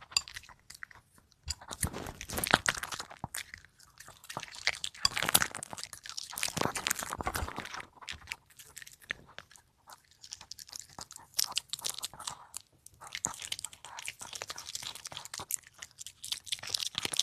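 A puppy chewing and crunching food close up: bouts of rapid crisp crunches broken by short pauses.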